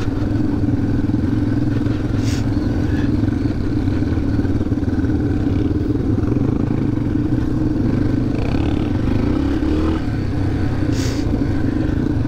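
Yamaha dirt bike engine running steadily in first gear at low trail speed, rising in pitch briefly around nine to ten seconds in. Short rattles come through about two seconds in and again near the end.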